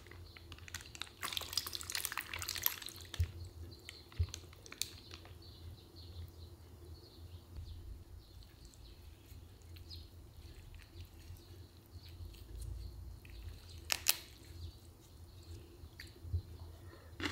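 Quiet, wet handling and chewing sounds of napa cabbage kimchi being tasted. There is a crinkly rustle about two seconds in, a couple of soft knocks, and one sharp click near the end.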